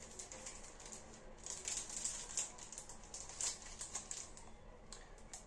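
Foil trading-card booster packs being handled: faint, irregular crinkles and light clicks of the wrappers.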